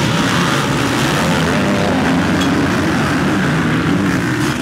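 A pack of motocross bikes racing through a corner, many engines running hard and revving together at once, loud and unbroken.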